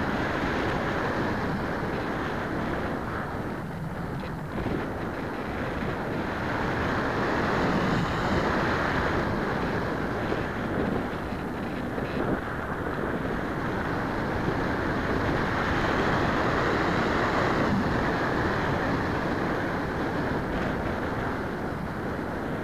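Rushing wind on the microphone of a camera riding on a flying radio-control model plane. The noise swells and eases, loudest about a third of the way in and again past the middle.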